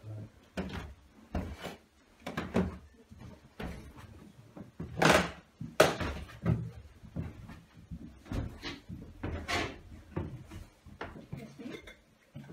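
Footsteps going down a staircase: a string of uneven thuds and scuffs about once a second, with a sharp knock about halfway through.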